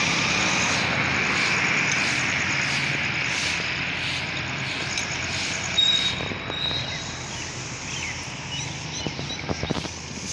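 Motor vehicle engine running close by with road noise, loudest at first and slowly fading over several seconds. A short high-pitched tone sounds about halfway through.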